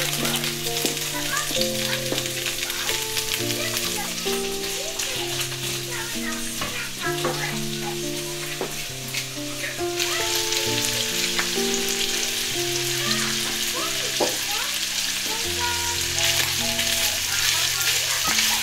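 Strips of chicken sizzling as they fry in an enamelled pan, with the scrape of a wooden spatula turning them now and then. The sizzle grows louder about halfway through. A slow, gentle melody of sustained notes plays throughout as background music.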